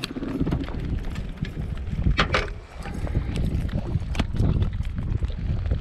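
Wind buffeting the microphone on a small open boat, with scattered knocks and rustles from hands handling a hooked fish and tackle, and a brief sharper rattle about two seconds in.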